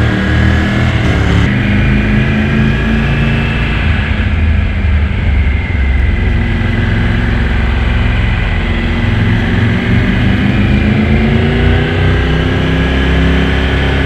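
Motorcycle engine running while riding, with wind rushing past. Its pitch drops abruptly at a gear change about a second and a half in, then climbs steadily as it accelerates near the end.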